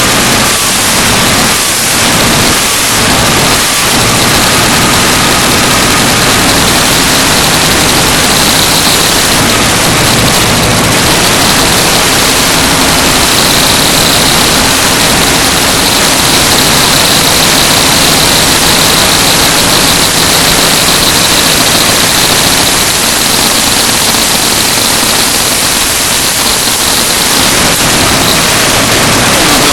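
Loud, steady hiss of static from a faulty audio recording, filling the whole sound track and burying any other sound.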